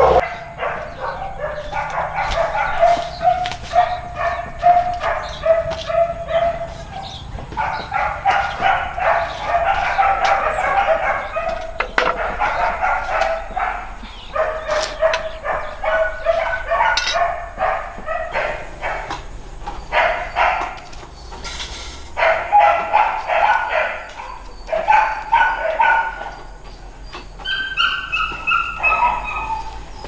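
An animal calling in long runs of quick, pulsed cries, broken by short pauses, with a few falling calls near the end.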